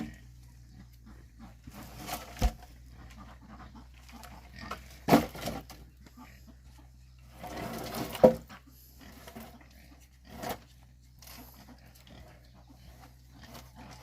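Animal calls in short separate bursts a few seconds apart, the loudest about five and eight seconds in, over a faint steady hum.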